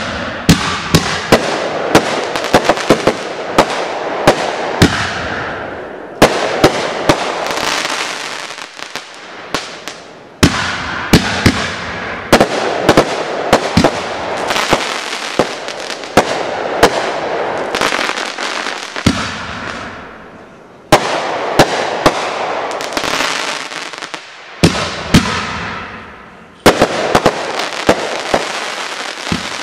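Consumer artillery shells from a TRIAD (BIG) kit bursting overhead one after another. There are about seven loud reports, each followed by a few seconds of dense crackling that fades before the next shell.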